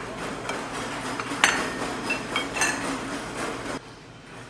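Clinks and clatter of dishes and metal tableware at a restaurant table, over a steady background din. There are several sharp clinks with short ringing pings, the loudest about a second and a half in. The sound drops abruptly near the end.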